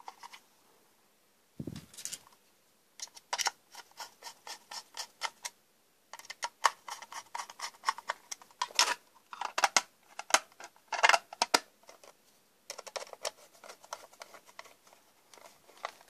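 Small screwdriver working the screws of a plastic Legrand manual fire alarm call point: runs of quick, sharp clicks and ticks in several groups, with a low thud of the housing being handled about two seconds in.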